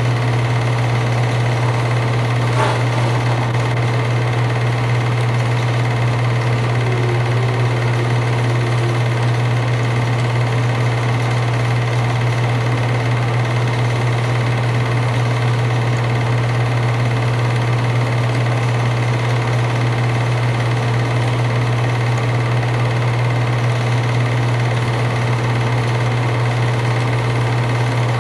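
8mm film projector running: a steady mechanical whirr and clatter with a strong low hum, unchanging throughout.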